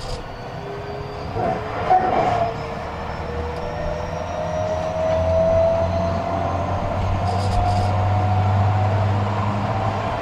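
Tobu 50000-series electric train heard from inside the car, its traction motors and VVVF inverter whining in steadily rising tones as it accelerates, over a steady low hum.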